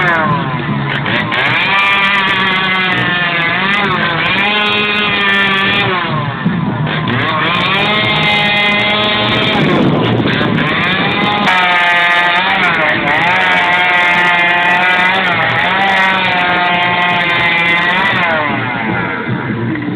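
Two-stroke chainsaw carving a wooden log, the engine revving up and down over and over as the chain goes in and out of the cut, with a short drop about halfway.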